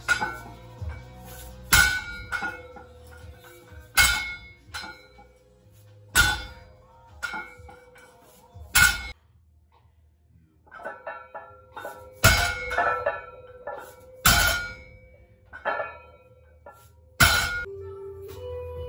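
Deadlift reps with a plate-loaded barbell: each time the bar touches down, the iron plates hit the floor with a thunk and a metallic clang, about every two to three seconds, with a short quiet pause midway. Background music plays under the impacts.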